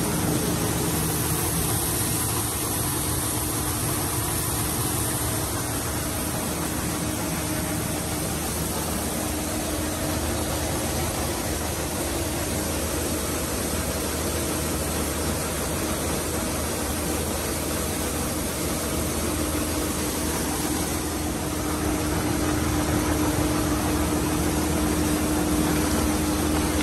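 Rice color sorter running: a steady machine hum with an even hiss, as rice streams out of its outlet chutes.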